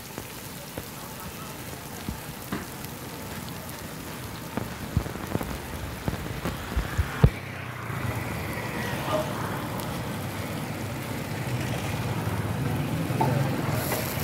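Oil sizzling on a large flat iron griddle (tawa) where shami kebabs, egg and onions are frying, getting louder in the second half. A few sharp knocks come along the way, the loudest about seven seconds in.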